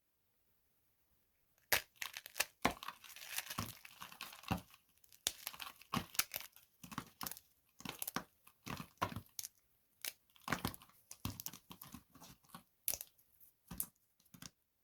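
Dry soap being crushed, crunching and crackling in quick, irregular bursts that start about two seconds in and continue to near the end.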